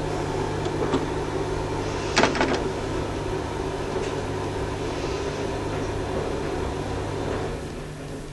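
Record player with the platter spinning: the stylus is set down on the vinyl single with a cluster of clicks and a knock about two seconds in, then runs in the lead-in groove with surface hiss over a steady hum, before any music begins.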